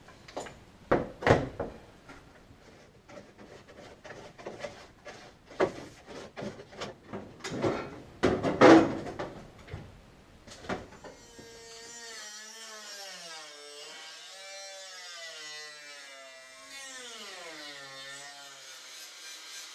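Knocks and clatter of metal parts and hand tools being handled, then about twelve seconds in a power cutting tool starts and runs on, its pitch wavering up and down with the load as it cuts the inner steel strap.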